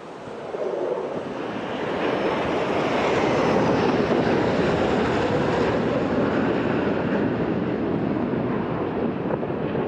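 Formation of six F-16 Fighting Falcon fighter jets passing overhead: a dense jet-engine noise that swells about a second in, is loudest around three to four seconds in, and then slowly fades.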